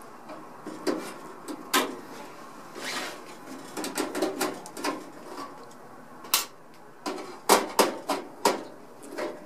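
Metal clicks and knocks from handling the inner sheet-metal cover inside a Dainichi kerosene fan heater's casing as it is being taken off. The knocks come irregularly, with the sharpest ones in the second half.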